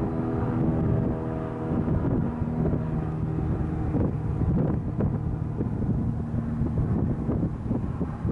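Wind buffeting the camera microphone in gusts, strongest in the second half. Under it runs a low hum of several steady tones that fades out near the end.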